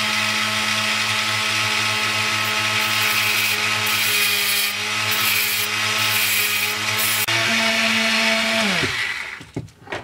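Dental-lab micromotor handpiece running a small cutoff wheel, grinding a flat onto the shank of a carbide latch burr: a steady motor whine under a gritty grinding hiss that comes and goes in short bursts in the middle. About nine seconds in, the motor is switched off and winds down, falling in pitch.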